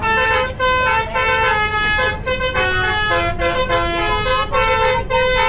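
Tour bus's multi-tone 'telolet' horn playing a tune of held notes that step up and down in pitch, over the low rumble of the bus.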